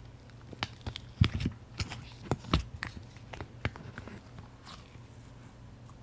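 Fingers pressing and poking soft, fluffy slime in a plastic tub, giving a run of sharp little pops and clicks that are loudest in the first half and fade to faint squishing.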